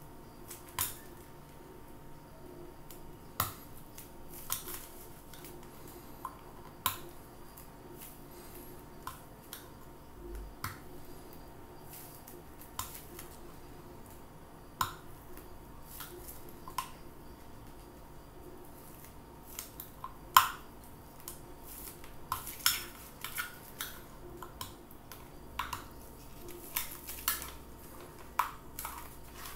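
Flat screwdriver prying at the rim of a 1960s Soviet metal flashlight: irregular sharp metallic clicks and scrapes of the blade against the metal body, with the loudest click about twenty seconds in.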